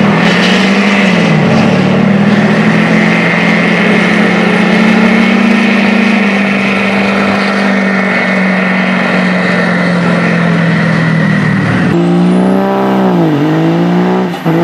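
GMC Sierra diesel pickup doing a burnout: the engine is held steady at high revs while the rear tyres spin and squeal. About twelve seconds in, this gives way to a Dodge Ram diesel pickup revving, its engine note dipping and climbing twice.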